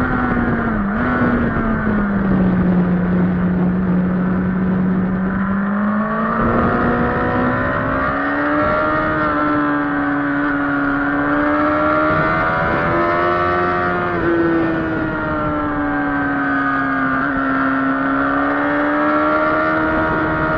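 Kawasaki sportbike's inline-four engine running at high revs under a steady rush of wind. The pitch falls in the first two seconds and stays low until about six seconds in as the bike slows. It then climbs back as the engine pulls hard again and holds high with gentle rises and falls, with a brief step in pitch around fourteen seconds.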